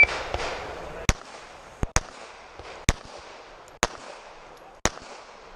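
An IDPA shot timer beeps once, then a pistol fires six shots, mostly about a second apart with one quick pair, as the shooter engages cardboard targets one-handed.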